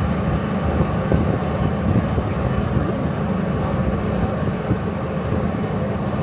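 Steady low engine drone with a constant hum and rumble, unbroken throughout.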